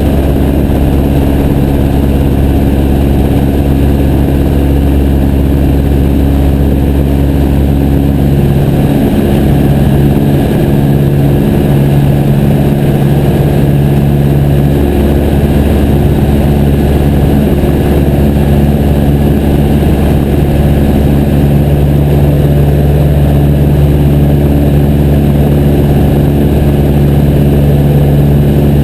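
Piper J3 Cub's light-aircraft engine and propeller running steadily in cruise flight, a loud constant drone with a slight change in the engine note about nine seconds in.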